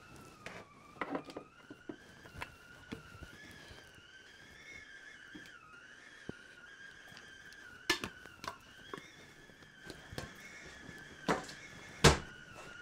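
A faint, steady whistling tone that wavers slightly in pitch, with scattered light knocks and clicks in a small room. A sharper knock comes near the end.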